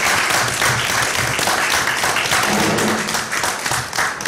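Applause from a small group of seated people: many hands clapping at once in a dense, steady patter.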